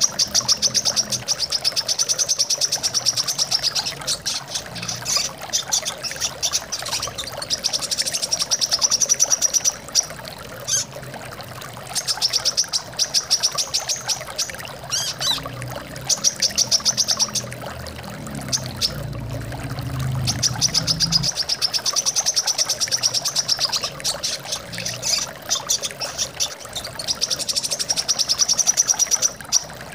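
Brown-throated sunbird (kolibri kelapa) song: rapid high trills in phrases of one to three seconds, repeated with short gaps, over the steady sound of running water. A brief low rumble comes about two-thirds of the way through.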